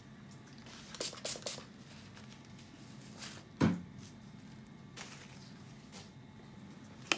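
A few light clicks about a second in, one louder knock a little past the middle, and more sharp clicks near the end, over a quiet room background.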